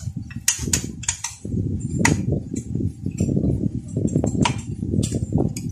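Scattered light metallic clinks and taps of hand tools and parts being handled on a partly disassembled Honda Wave 125 engine, over a steady low background rumble and a faint steady hum.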